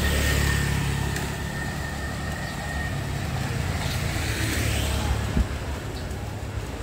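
Street traffic: a motor vehicle's low engine rumble, loudest at the start and easing off, with a thin steady whine over the first few seconds and one short knock near the end.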